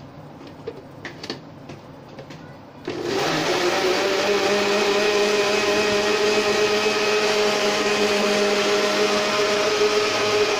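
Electric countertop blender: a few light clicks as the lid goes on, then about three seconds in the motor starts and runs at a steady speed and pitch, blending mango pieces with water and sugar.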